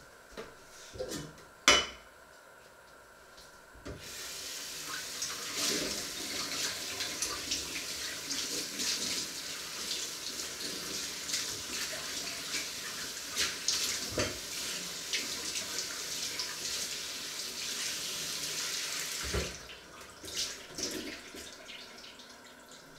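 Kitchen tap running into a sink for about fifteen seconds, with small clinks over the running water, then turned off. A single sharp knock, the loudest sound, comes about two seconds in, and a few clatters follow once the water stops.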